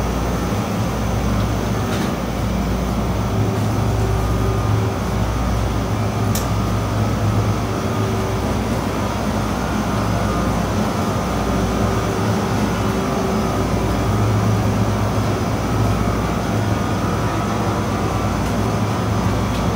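Steady low hum and rumble of supermarket background noise beside open refrigerated display cases, with several steady hum tones from the chiller machinery.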